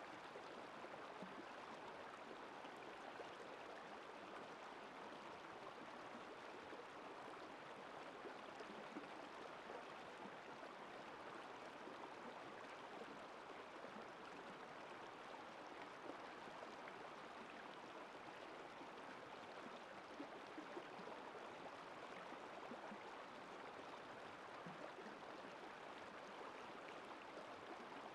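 Shallow, rocky river running over and between stones: a steady, faint rush of flowing water.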